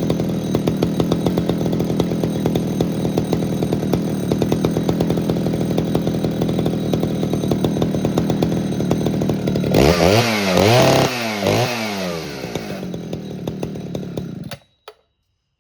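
Poulan 4900 CounterVibe 77cc two-stroke chainsaw idling steadily, revved up and back down a few times, then settling to idle and shut off, the engine stopping abruptly. A couple of faint clicks follow.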